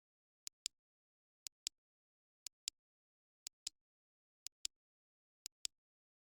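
Clock ticking sound effect: a pair of sharp clicks once a second, the second click of each pair louder, six pairs in all with dead silence between.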